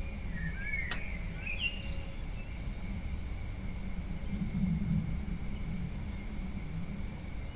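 Wild birds giving short, scattered chirps and whistles over a steady low rumble of outdoor background noise, with a thin steady high tone.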